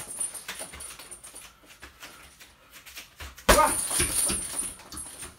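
A single hard punch thuds into a hanging heavy bag about three and a half seconds in, after a stretch of faint light taps.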